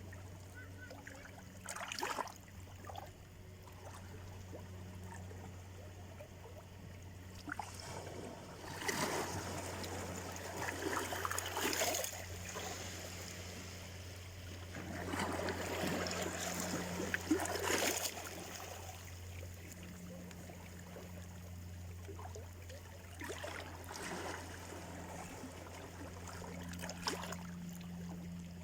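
Small Black Sea waves washing onto the shore, each one swelling into a rush of water and then fading, five or so times, with a steady low hum underneath.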